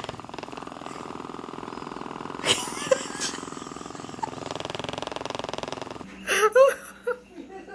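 Domestic cat purring steadily, with a brief cry about two and a half seconds in. After about six seconds the sound changes to short, separate vocal sounds.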